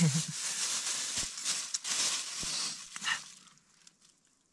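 Clear plastic food bag rustling and crinkling as it is handled and opened, with small crackles, stopping about three seconds in.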